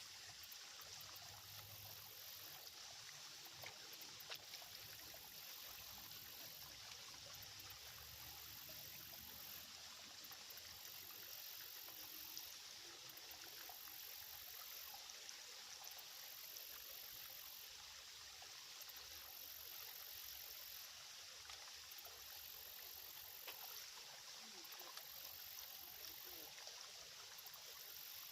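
Small, shallow creek trickling and flowing steadily, a faint even rush of water.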